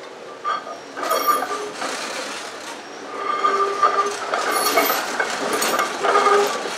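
A PCC streetcar rounding a tight curve at close range: its steel wheels squeal on the rails in a few steady tones that come and go, with sharp knocks as the wheels cross the track joints, loudest as the car passes.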